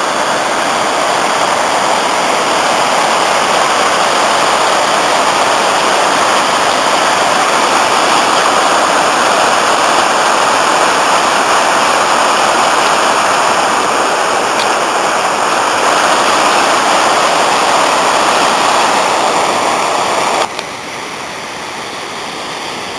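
Waterfall on the Afon Cwm Nantcol, in spate after heavy rain, rushing loudly and steadily. Near the end the rush drops abruptly to a quieter level.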